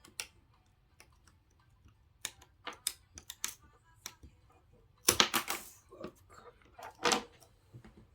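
Small tools and phone parts being handled during a Samsung A50 repair: scattered light clicks and taps. About five seconds in there is a louder quick run of clicks, and another sharp click comes near seven seconds.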